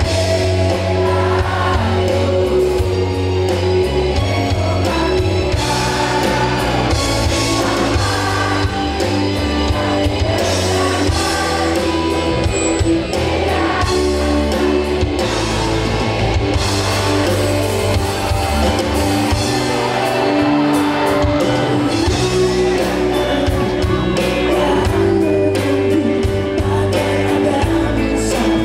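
A rock band playing live with a singer: electric guitar, bass and drums running on continuously and loud.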